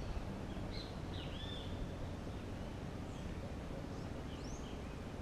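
A few short bird calls, about a second in and again past three seconds, over a low steady hum.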